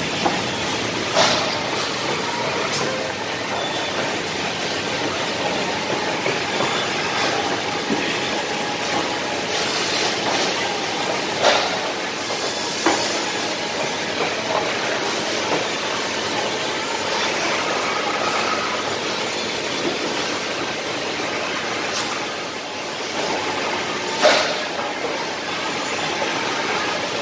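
Double-head wood drilling machine running, its bit boring holes in pine blocks, heard as a steady whirring noise. A few sharp knocks of wood on wood stand out now and then.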